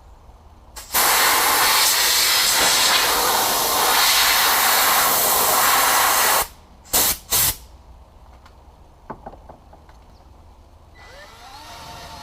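A pressurised spray hissing in one long burst of about five seconds, then two short bursts. A low hum with a few tones starts to rise near the end.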